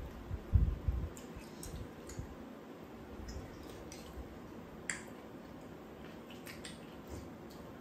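Eating at the table: soft wet chewing of rice cakes, with a few light clicks of chopsticks against bowls. There are a couple of low thumps in the first second.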